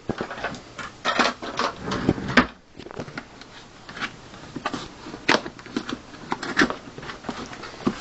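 A graphics card box and its packaging being handled: irregular clicks, knocks and rustles, with a sharper knock about two and a half seconds in.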